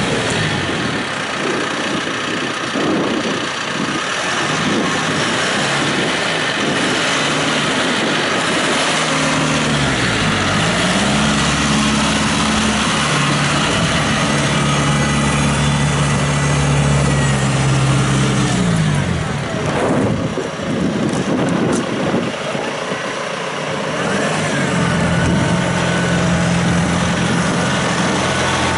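2016 John Deere 5115M tractor's four-cylinder diesel engine running, with gravel crunching over the first several seconds. About ten seconds in the engine note dips, then rises and holds steady; it fades near the twenty-second mark and comes back steady near the end.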